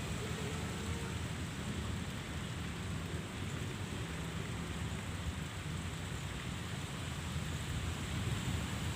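Steady rushing outdoor noise with a strong low rumble and no distinct events.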